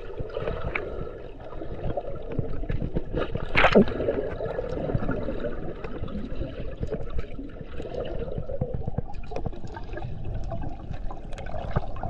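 Fast-flowing mountain stream gurgling and splashing close to the microphone as a person moves through the water, with many small splashes and one louder burst about four seconds in.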